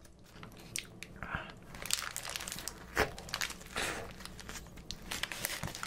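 Paper wrapper of a McDonald's egg bulgogi burger crinkling close to the microphone as the burger is handled and bitten into. Quiet for about the first second, then dense crackling, with one sharper, louder crackle about three seconds in.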